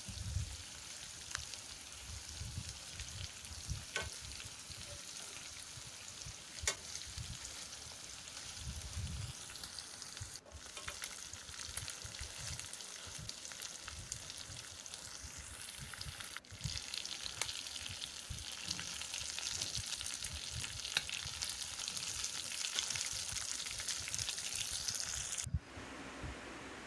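Marinated chicken pieces sizzling as they shallow-fry in a little oil in a nonstick pan, with a spatula scraping and turning them now and then. The sizzling cuts off suddenly near the end.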